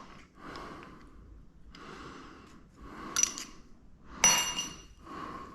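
Metal parts clinking and scraping as an engine piston and its rings are handled. There are two sharper clinks with a short ring, about three and four seconds in, the second the louder.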